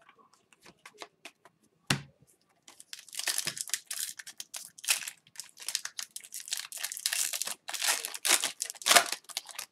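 Foil wrapper of an Upper Deck hockey card pack being torn open and crinkled by hand: a dense crackling starts about three seconds in and runs on, loudest near the end. Before it, a few faint clicks and one sharp tap.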